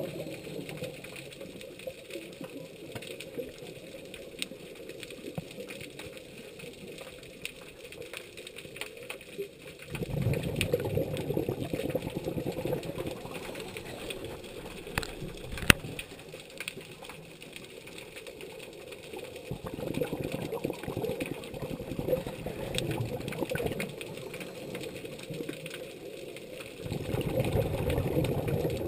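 Muffled underwater water noise heard by a submerged camera, swelling into louder rushing stretches of several seconds at a time, about ten, twenty and twenty-seven seconds in. A single sharp click near the middle.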